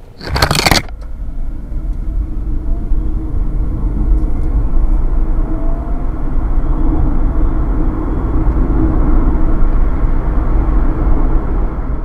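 Cabin noise in an electric ORA Good Cat 500 Ultra under full acceleration from a standstill to 100 km/h in Eco mode. Road and tyre rumble grows steadily louder as speed builds, with a faint rising whine from the front electric motor. A brief burst of noise comes about half a second in.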